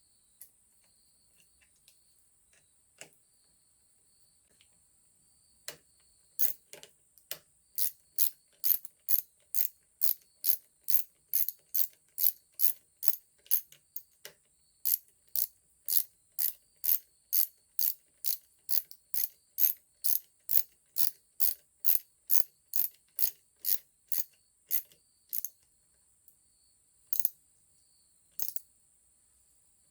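Hand ratchet wrench with a socket clicking at an even pace, about two or three clicks a second, as a bolt is tightened down. The clicking starts a few seconds in, stops near the end, and is followed by two lone clicks.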